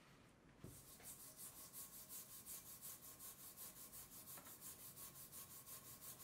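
Rapid back-and-forth scrubbing of a metal vice part with a small hand tool, about four or five strokes a second, faint. It starts just under a second in and stops near the end.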